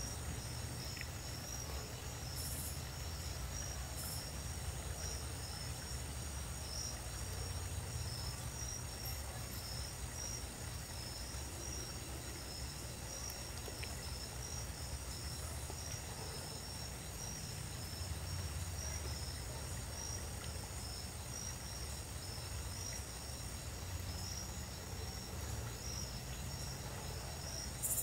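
Crickets chirping in a steady, evenly pulsing high trill, over a low steady rumble.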